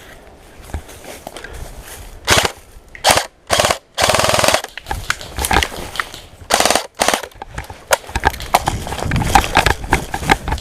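Airsoft electric guns (AEGs) firing short full-auto bursts of rapid clicking shots, several between about two and four and a half seconds in and another near seven seconds, followed by lighter scattered clicks and pops.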